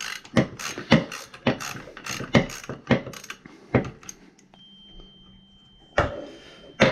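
Socket ratchet clicking in quick strokes, about four a second, backing out a 10 mm muffler bolt on a chainsaw; the clicking stops about four seconds in, and two knocks follow near the end.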